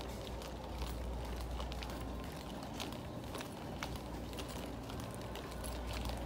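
Department-store room tone: a steady low hum with an even background hiss and scattered light clicks and rustles.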